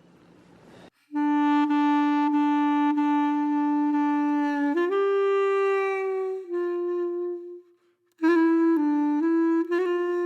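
Background music: a single wind instrument playing a slow melody. After about a second of quiet it holds one long note, steps up to a higher held note and then a slightly lower one, pauses briefly, and goes on with a quicker run of short notes near the end.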